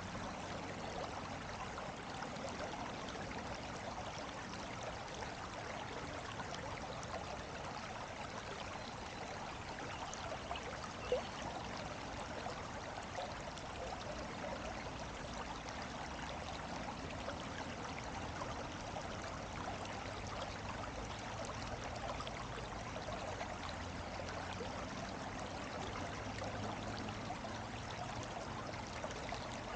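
Steady rush of flowing water, with one short click about eleven seconds in.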